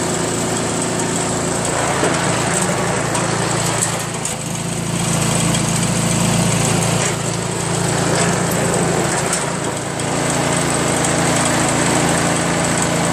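Craftsman 24-inch two-stage snowblower's 5 hp Tecumseh single-cylinder engine running steadily while the machine drives itself across the pavement. The engine gets a little louder for a few seconds in the middle.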